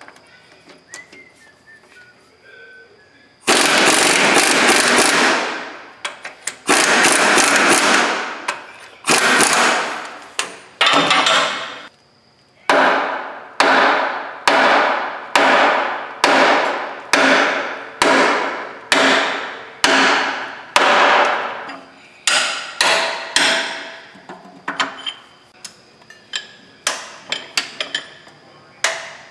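A pneumatic air tool chatters in two long bursts of a few seconds each against a crawler track's master pin. Then a hand hammer strikes the pin in a steady rhythm of about one blow a second, each blow ringing off the steel. Near the end come shorter, quicker blows.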